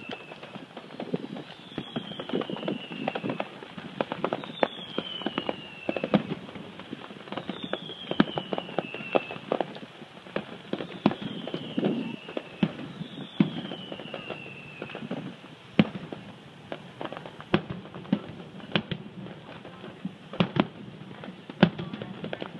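Distant fireworks going off, a steady run of sharp pops and bangs, with a few louder single bangs in the last several seconds. A high falling whistle repeats about every two and a half seconds through the first fifteen seconds.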